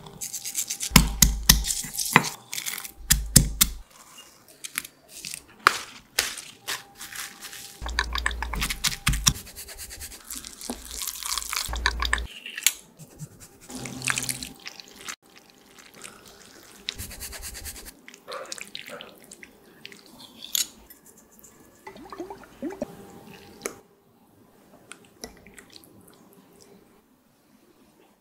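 Close-up kitchen sounds: garlic cloves dropping into a granite mortar, then heavy thuds and grinding of a pestle in the stone bowl, with many sharp clicks and knocks. Later a wooden spoon mixes wet pesto, grated cheese and farfalle pasta, and the scraping and clicking fade out.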